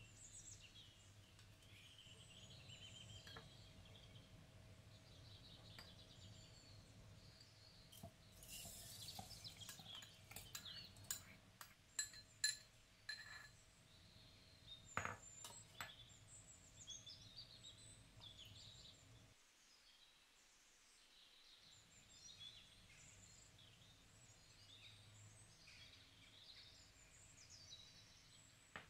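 Faint birds chirping throughout, under a low hum. In the middle come a run of sharp clinks of a metal spoon against a glass jar of soaked mustard seeds.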